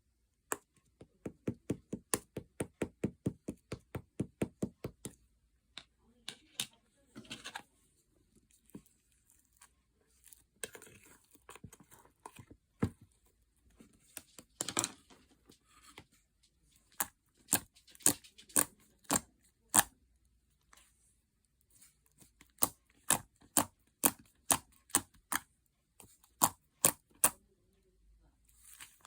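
Fluffy clay slime being squeezed and poked, making sharp clicking pops of trapped air. They come in quick even runs of about four to five a second, with scattered single pops between the runs.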